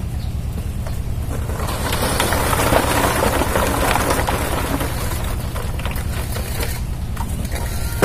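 Wet concrete scraped and scooped from a wheelbarrow into a bucket with a hand scoop, a gritty rasping that swells in the middle. Under it an engine idles with a steady low throb.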